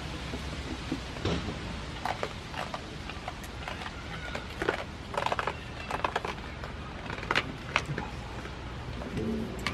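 Scattered short rustles and clicks from goats nuzzling and mouthing at a person's hands and clothes, over a steady background noise.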